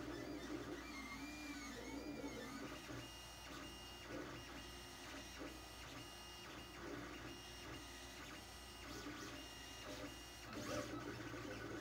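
Lulzbot TAZ 3 3D printer running, its stepper motors whining as the axes move. The tones first rise and fall in pitch, then from about three seconds in come as a string of short steady notes that start and stop.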